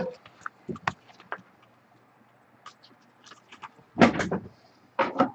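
Handling noises of trading cards and their cardboard box on a table: scattered light clicks and taps, then two louder knocks about four and five seconds in.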